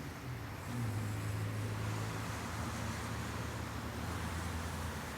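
An engine running steadily, a low hum whose pitch steps up slightly about a second in, with a hiss of wind or water over it.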